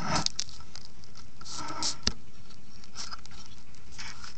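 Handling noise close to the microphone: scattered clicks, taps and brief rustles as something heavy is set on the camera to hold it down. The sharpest click comes about two seconds in.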